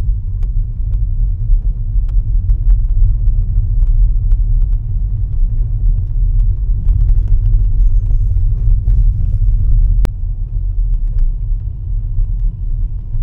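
Car driving slowly along a narrow mountain lane, heard from inside the cabin: a steady low rumble of engine and tyres, with scattered small ticks and one sharp click about ten seconds in.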